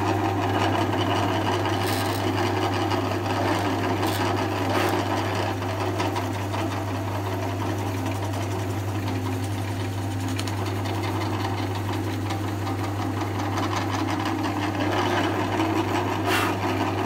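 Drill press motor running steadily with a constant low hum while its bit slowly bores a hole into a plywood frame.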